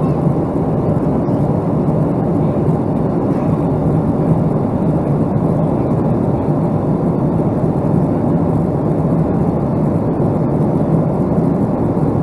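Steady, even rush of a Boeing 757-200 in operation, engine and airflow noise that holds level without rising or falling.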